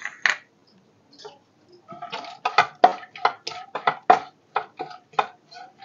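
Wooden spatula stirring dry fruits in a nonstick wok, making a quick, irregular run of knocks and scrapes against the pan that starts about two seconds in. Two short clicks at the very start.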